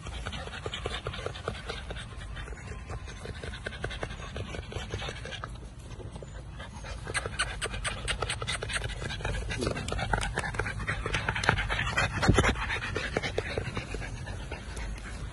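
American Bully puppy panting rapidly and steadily, getting louder and heavier about halfway through.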